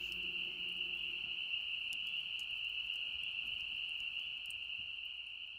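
Steady, high-pitched night chorus, a continuous trill without a break, with a few faint pops from a wood campfire. It fades out near the end.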